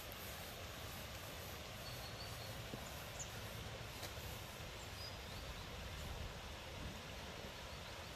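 Steady outdoor background noise, an even hiss with a low rumble underneath, with a few faint, short, high chirps now and then.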